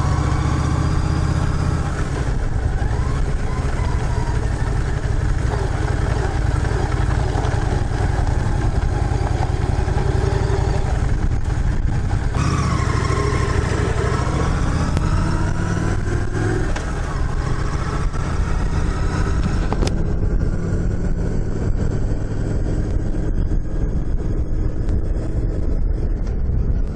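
Honda Shadow 750 V-twin motorcycle engine pulling away and accelerating through the gears, its note rising and dropping back at each shift, then running steadily at cruising speed.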